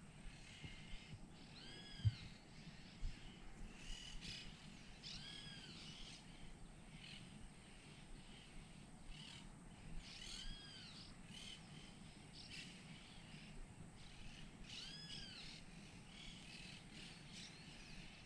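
Faint wild birds calling: one bird repeats a short, arched call with overtones four times, a few seconds apart, among scattered shorter chirps over a low rumble.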